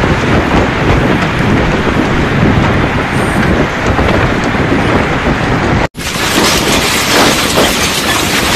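Storm wind and heavy rain, with gusts buffeting the microphone in a dense, low rumble. Near two-thirds through the sound drops out for an instant and comes back as a brighter, hissier rush of rain and wind.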